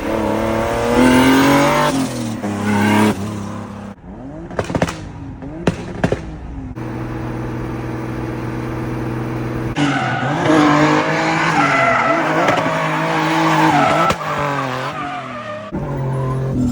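A turbocharged BMW E36 engine revving up and down with tyre squeal, typical of the car drifting. There are a few sharp cracks about five seconds in.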